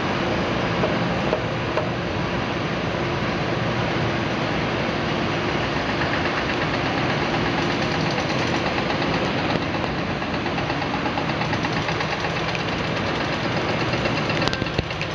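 Diesel engines of hydraulic excavators running steadily as they dig in mud, with a brief knock near the end.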